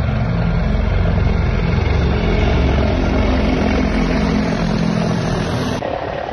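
Helicopter engine and rotor noise: a loud, steady low rumble with fast, even rotor pulsing. It changes abruptly near the end, as if cut.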